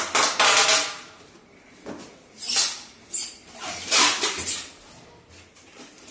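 Packing tape pulled off the roll in several short noisy pulls, the longest at the start, and pressed down onto a cardboard box to seal it.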